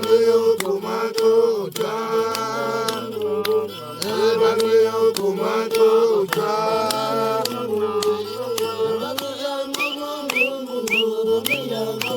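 Background music: a held, chant-like melody over a low bass line that steps between notes, with light clicking percussion.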